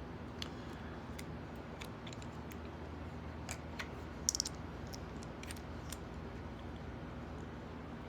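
Scattered light clicks and small metallic clinks from handling a lock and small tools on a bench, with a brief rattle of clinks about four seconds in, over a steady low hum.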